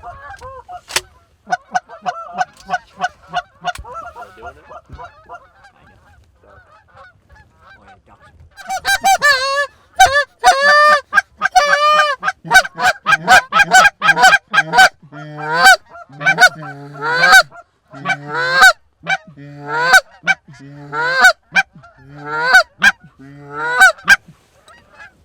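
Canada geese honking: many faint honks from a flock at first, then loud, close honks and clucks from about eight seconds in, coming in a quick regular rhythm.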